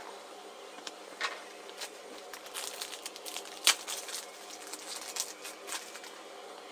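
Foil wrappers of Adrenalyn XL football card packets crinkling as they are handled, with cards being shuffled: scattered sharp crackles, the loudest about three and a half seconds in.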